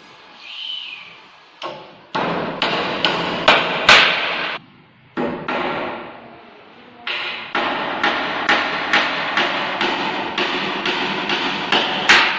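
Hammer striking wood during stair installation, in runs of about two to three blows a second, with a pause near the middle and ringing between blows.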